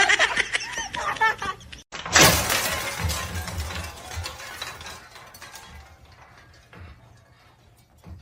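A sudden crash with clattering that dies away over two to three seconds, about two seconds in, like something falling and breaking.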